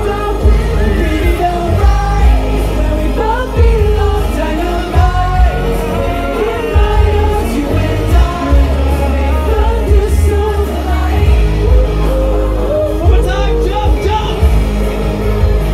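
Live pop song played loud through a club sound system, with a heavy steady bass and male voices singing over it.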